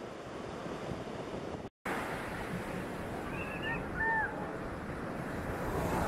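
Surf washing on a sandy beach, a steady rushing noise that cuts out for an instant about two seconds in. Around three to four seconds in, a few short, high calls that rise and fall sound over the surf.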